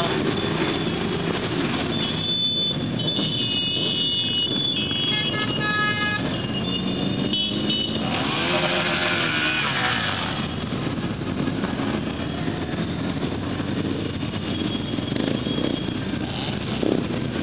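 A stream of motorcycles riding past at low speed, engines running and revving. Horns sound in steady toots for a few seconds, between about two and seven seconds in.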